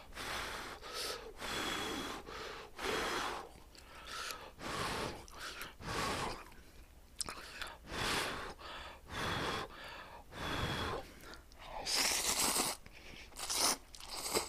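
A person eating hot instant ramyeon noodles: about one breathy burst a second of blowing on and slurping the noodles, with chewing between. The loudest bursts come near the end.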